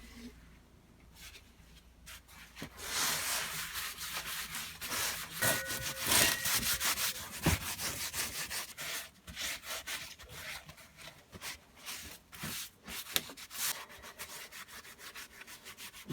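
Abrasive rubbing on a part being cleaned up by hand. A few seconds of continuous scratchy scrubbing give way to a series of separate short strokes.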